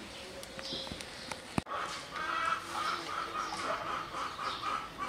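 Chickens clucking in a run of short, repeated calls. A sharp click comes about a second and a half in.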